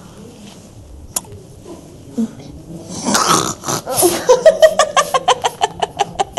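A woman laughing hard in a rapid run of loud pulses, about five a second, breaking out about three seconds in after a quiet stretch.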